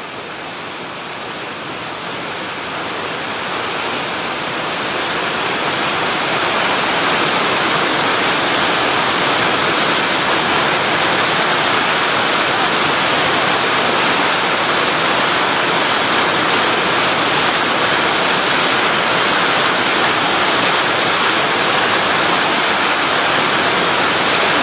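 Rushing whitewater of a river rapid, a loud, steady roar that grows louder over the first several seconds and then holds.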